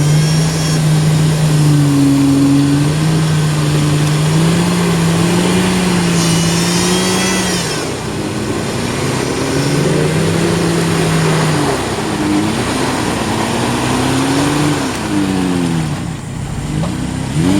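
Four-wheel-drive vehicle's engine running, its pitch rising and falling with the revs.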